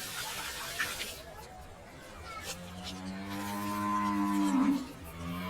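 Cattle lowing: one long, steady moo starting about halfway in and falling in pitch as it ends, with a second moo beginning near the end.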